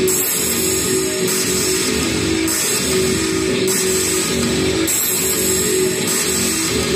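Live rock music led by an amplified electric guitar, dense and steady, with a pattern in the high end that repeats about once a second.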